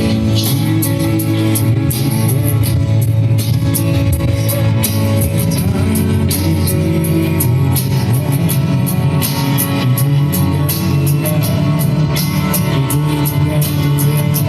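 Worship music with guitar, drums and a singing voice, playing steadily.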